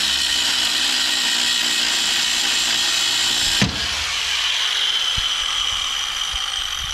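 Angle grinder with a cutoff wheel cutting through a rusty leaf-spring U-bolt, a steady high grinding. About halfway through comes a single sharp snap as the loaded bolt gives way, and the grinder runs on a little quieter, slowly fading.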